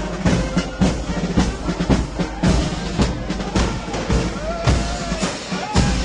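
Marching brass band playing, with trombones and tubas over a steady marching beat of bass and snare drum strikes, a little under two a second.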